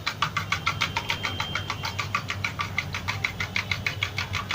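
Milk-and-egg batter being whisked by hand, the utensil clicking steadily against the side of the container about seven times a second, over a low steady hum.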